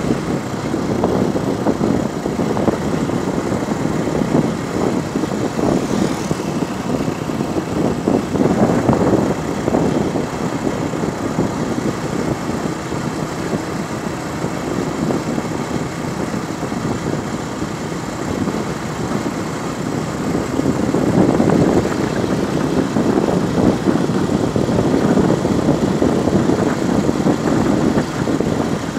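Strong wind buffeting the microphone of a moving vehicle, over engine and road noise. The rumble swells about 8 seconds in and again from about 21 seconds.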